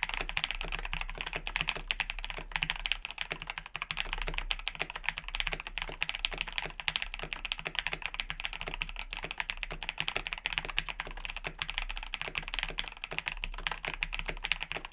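Fast, continuous typing on a mechanical keyboard fitted with Gateron linear switches: a dense, unbroken run of keystrokes with no pauses.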